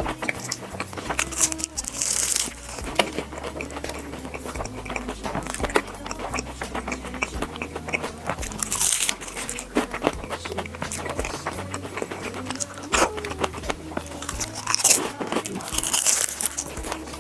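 Close-miked crunchy bites and chewing of food, with loud crackling crunches about 2, 9, 15 and 16 seconds in, over soft background music.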